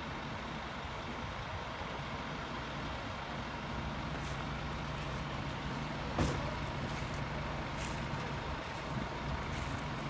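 Fire engines running steadily at idle, a low, even engine hum with a faint steady whine above it. A single short knock comes about six seconds in.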